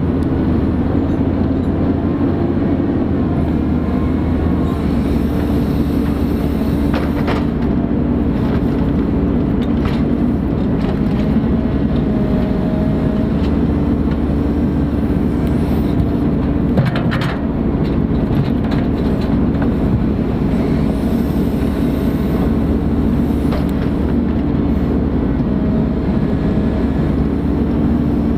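Ponsse Buffalo forwarder's diesel engine running steadily, with short whines coming and going over it and a few sharp knocks, the loudest about 17 seconds in.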